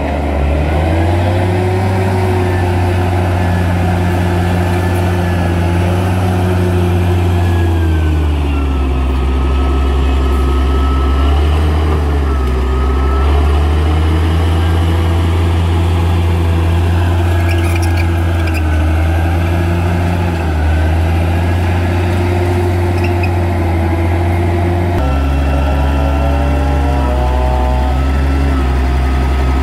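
Bulldozer's diesel engine running hard, its pitch sagging and recovering several times as the load comes on and off. The engine note changes abruptly near the end.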